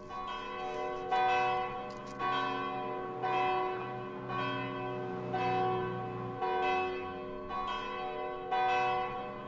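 Bells ringing, with a new strike about once a second, each one ringing on into the next.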